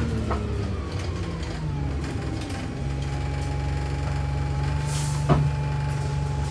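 A single-deck bus's engine and drivetrain heard from inside the passenger saloon while under way, its note dropping over the first couple of seconds and then holding steady with a constant whine. About five seconds in there is a brief hiss of air and a sharp click.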